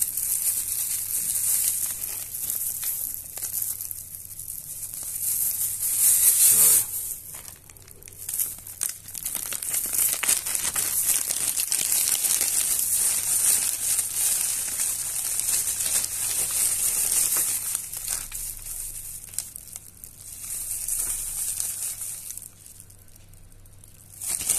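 Clear plastic zip-lock bags crinkling and rustling as hands handle them and pull one open. It is loudest about six seconds in and briefly quieter near the end.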